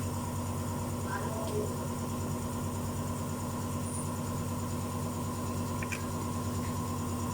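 Steady mechanical hum with fixed pitches and no change in speed, with a brief faint voice about a second in.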